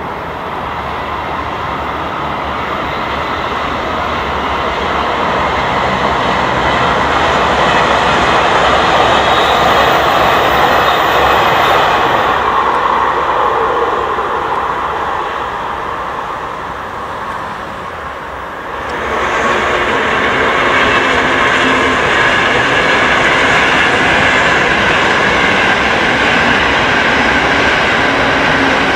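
High-speed electric trains running past at speed: a steady rushing of wheels on rail and air that swells for several seconds and then eases. About two-thirds of the way through, the sound changes abruptly to a second train passing.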